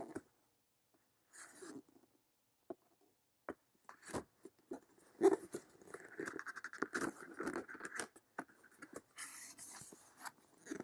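Toy packaging being handled and opened by hand: a few light clicks, then a stretch of rustling, scraping and tapping from about four seconds in.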